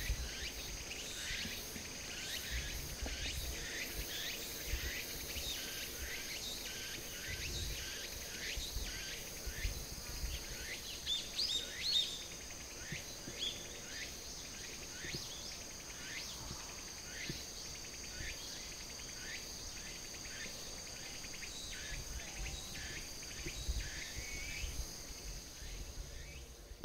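Outdoor ambience of insects trilling steadily at a high pitch, with short downward-sliding chirps repeating about twice a second and a low rumble underneath; it all fades out at the very end.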